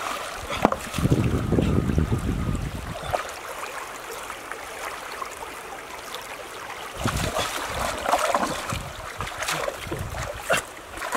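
Shallow stream water sloshing and splashing as someone wades and grabs at the stream bed, with scattered knocks. A stronger low rumbling surge comes about a second in and again about seven seconds in.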